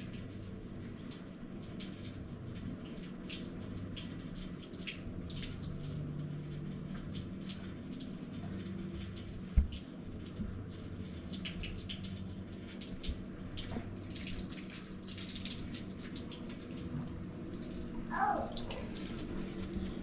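Water from a bathroom sink tap running and splashing as a baby is washed at the basin. A single sharp knock about halfway through, and a short falling pitched sound near the end.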